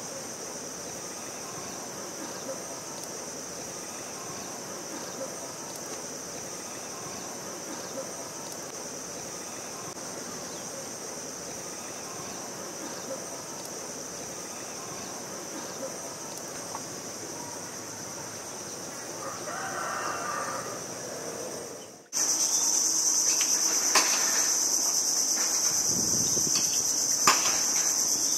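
Steady high-pitched insect drone over wetland ambience, with a short louder call about twenty seconds in. After a cut a little past twenty seconds the insect drone is louder, with a few faint clicks.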